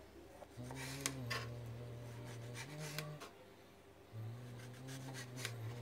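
Kitchen knife slicing through a tomato and clicking against a plastic cutting board: a few sharp clicks, loudest about a second in, and a cluster near the end. Under them runs a low, held tune that steps between a few notes.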